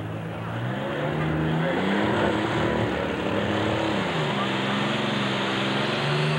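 Alcohol-burning super stock pulling tractor's engine under full load as the tractor takes off with the weight-transfer sled at the start of a pull. The engine note climbs, dips once about four seconds in, and climbs back.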